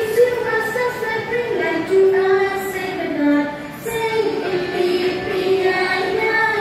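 A group of women singing a song together in unison, holding long notes.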